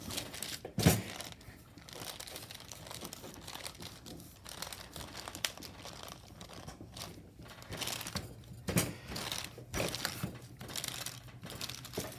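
Parchment paper crinkling and rustling as a stainless steel rolling pin with guide rings is rolled back and forth over dough between two sheets, with occasional knocks, the sharpest about a second in.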